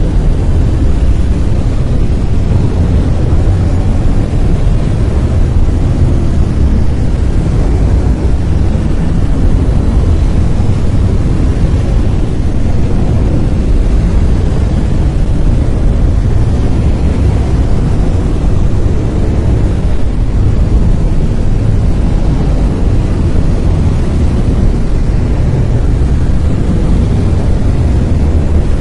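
Brown noise: a loud, steady, deep rushing hiss, strongest in the bass and rolling off toward the treble, without change.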